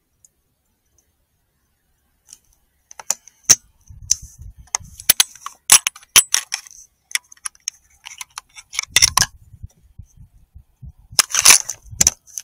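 Handling noise close to a rifle-mounted thermal riflescope's built-in microphone: an irregular series of sharp clicks and knocks with some low rubbing, starting about two seconds in, with the loudest, half-second burst of knocking and scraping near the end.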